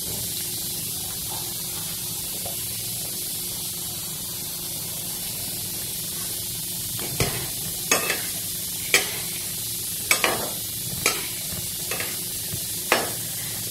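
Gulab jamun khoya dough balls deep-frying in hot oil in a metal kadhai, with a steady sizzle. From about seven seconds in, a metal slotted spatula knocks against the pan about once a second as the balls are stirred.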